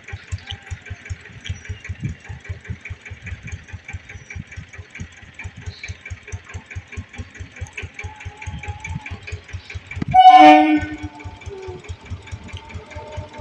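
Approaching BEML electric multiple unit train sounding its horn once, a loud blast of about a second starting about ten seconds in, over a steady rapid clicking about five times a second; the train's running sound then builds as it nears.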